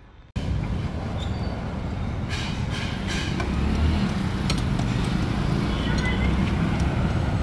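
Steady roadside traffic noise, a low rumble that starts abruptly a moment in and grows a little louder about halfway through. Light metallic clicks come every so often from hands working on a motorcycle's rear fender and light fitting.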